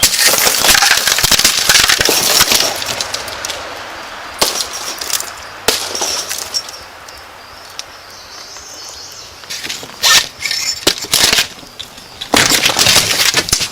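Glass breaking and crashing in several loud bouts, the longest in the first few seconds and shorter ones later, as if a window or door is being forced in.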